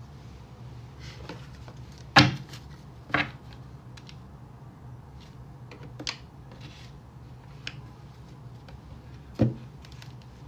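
A few separate sharp knocks, the loudest about two seconds in and another near the end, over a steady low hum.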